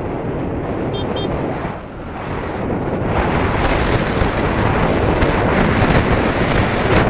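Wind rushing and buffeting over an action camera's microphone on a Yamaha Aerox 155 scooter at speed, drowning out the engine; the rush grows louder about three seconds in as the scooter speeds up past 60 km/h. Two short high beeps come about a second in.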